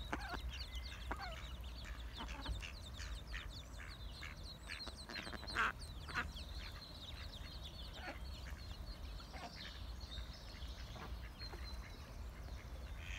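A brood of mallard ducklings peeping continually while they feed, many short high falling peeps overlapping one another. A few short sharp sounds cut in, the loudest about five and a half seconds in.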